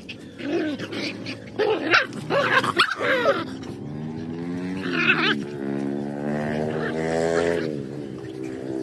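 Several dogs play-fighting, with short growls, barks and yips over the first three seconds or so. A long, steady pitched drone follows through most of the rest.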